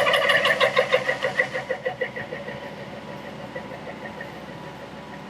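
Metal lathe running with a rapid, even clatter of about eight beats a second that fades away over the first two seconds or so, leaving a steady low hum.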